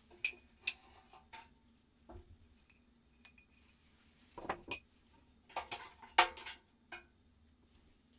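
Irregular clinks and knocks of metal being handled, a few ringing briefly, with a busy stretch of rattling past the middle and the loudest knock about six seconds in.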